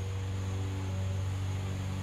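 Lawn mower engine running steadily, a low hum that swells slightly and shifts a little in pitch, as a moving mower does.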